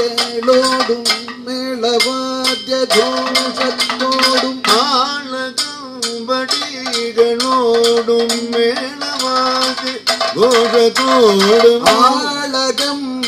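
Kathakali music: a male voice sings long, gliding held notes over a steady beat of sharp metallic cymbal strikes, about two a second, with drum strokes.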